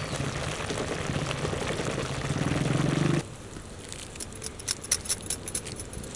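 Noodles boiling in a broth of sauce and vegetables in a wide aluminium pan, a steady bubbling with a low hum that grows louder until it drops off suddenly about three seconds in. Then comes a quieter stretch of sharp crackles and drips as the noodles are lifted high out of the pan.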